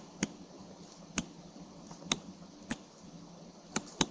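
About six sharp, irregularly spaced clicks from a stylus tapping on a pen tablet while handwriting.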